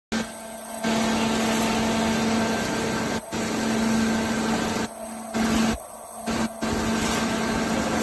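TCM HPA40C horizontal automatic baler running with its feed conveyor: a steady machine drone with a constant low hum. The noise drops sharply for a moment several times.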